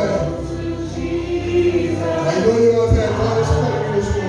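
Congregational gospel singing: a choir of voices sings a slow hymn over a sustained accompaniment with a steady bass line.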